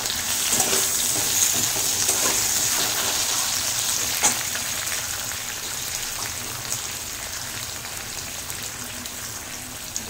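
Potato pieces frying in hot oil in a steel kadai: a steady sizzle that eases a little as it goes on. A metal spatula stirs them at the start, and there is one sharp tick about four seconds in.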